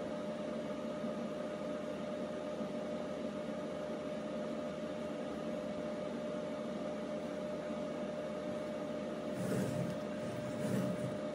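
Steady hum and hiss with one constant mid-pitched tone. Near the end, two brief rustling handling sounds as a laptop is moved and opened on a stone countertop.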